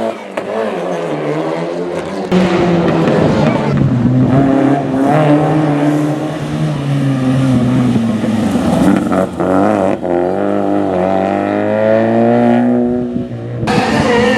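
Rally car engine revving hard through the gears, its pitch rising and falling with brief dips at the shifts and a long rising pull before a sudden louder, brighter burst of engine sound near the end.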